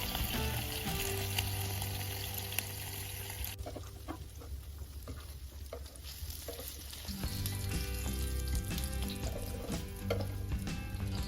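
Sizzling and crackling from cooking over a wood fire, with soft music carrying sustained low notes. The steady hiss cuts off abruptly a few seconds in, leaving scattered crackles before the music swells again.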